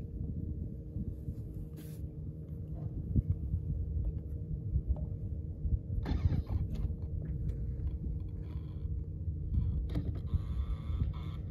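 Steady low rumble with a faint steady hum, as aboard a small boat on the water. A brief rustling noise comes about six seconds in, and a mix of higher sounds joins from about ten seconds.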